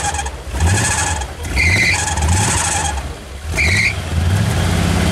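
Square-body Chevy pickup engine revving in repeated bursts as the truck rocks and spins its tires in deep snow, with a short high squeal on two of the revs. Onlookers take the sound as a sign that something on the truck is hurting.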